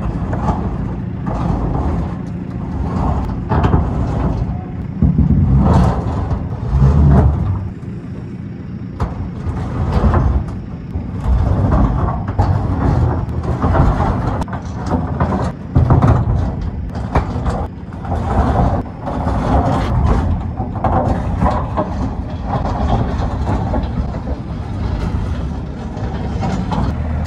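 A heavy machine's engine working under load while a steel shipping container is dragged across round posts over gravel, with irregular knocks and creaks from the container and posts.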